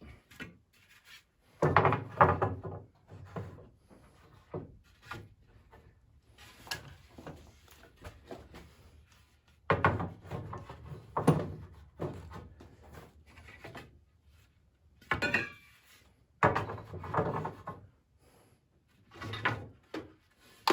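Poplar boards being handled and set down on a wooden swing frame: a string of irregular wooden clunks and knocks, with quieter rubbing and shuffling between them.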